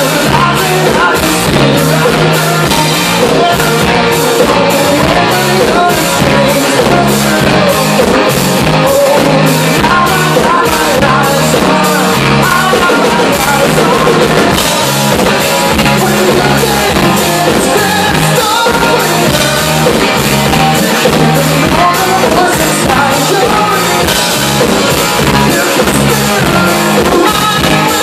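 Rock band playing live and loud: electric guitars, bass guitar and a drum kit with regular cymbal hits.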